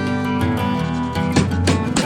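Background music: a song's instrumental passage with strummed acoustic guitar, with a few sharp strokes in the second half.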